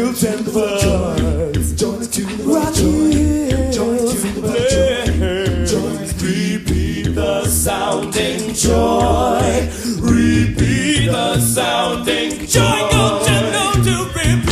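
Upbeat pop-gospel Christmas song with singing voices over a steady drum beat.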